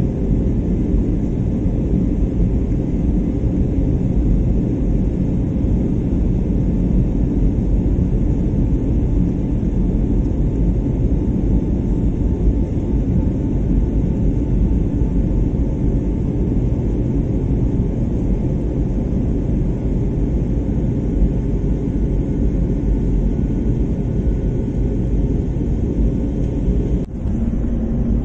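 Steady low roar of an airliner's jet engines and rushing air heard inside the passenger cabin from a seat over the wing. It dips briefly near the end.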